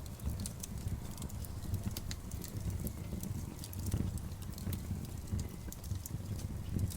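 Wood campfire crackling, with frequent sharp irregular pops and snaps over a steady low rumble.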